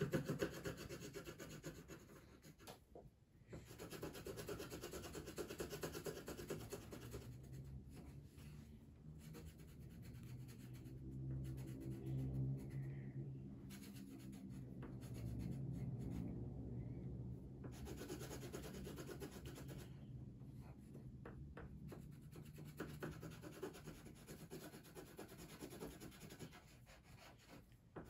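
Yellow coloured pencil rubbing back and forth on paper while an area is coloured in. A low hum runs under it through the middle.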